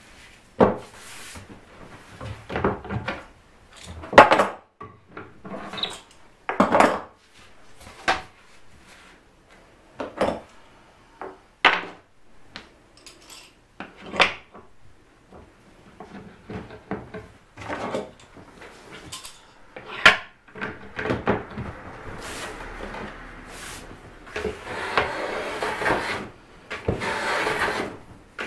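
Wooden knocks and clacks as a spruce soundboard and a wooden block are handled and set down on a wooden bench. About two-thirds of the way through, a first-generation Kanai Japanese hand plane starts shaving the spruce in several long, hissing strokes.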